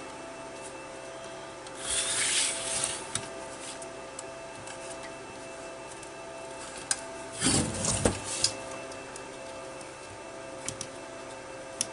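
Handling noise from a sheet-metal car DVD player chassis and its wiring being shifted on a workbench: scraping and rubbing in two bursts, about two seconds in and again around eight seconds, with a few small clicks.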